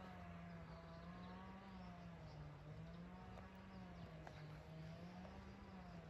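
Near silence: a faint low hum, slowly wavering in pitch.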